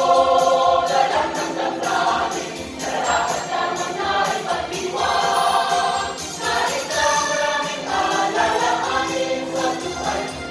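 A choir singing a Christmas carol in long held notes, with musical accompaniment and jingling percussion keeping a steady beat.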